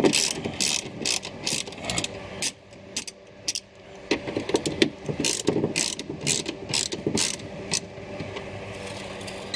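Hand ratchet clicking in quick regular strokes as it backs out the triple-square bolts holding a car door's lock and latch assembly. The clicking stops about three-quarters of the way through.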